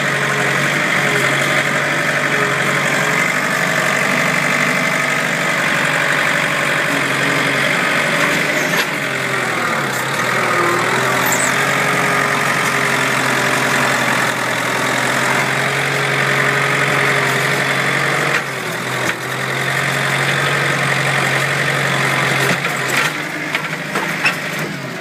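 Skid steer loader's engine running steadily while the machine pushes and smooths loose fill dirt with its bucket. The engine note dips briefly twice under load changes and eases off near the end.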